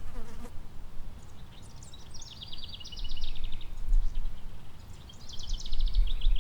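A songbird singing two quick trilled phrases of rapid, evenly repeated high notes, the second starting about five seconds in, over a steady low rumble.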